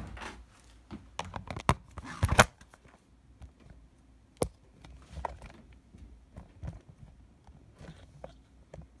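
Handling noise from a phone camera being moved and set up above a desk: a cluster of knocks and rubbing, loudest about two and a half seconds in, then scattered light clicks and taps.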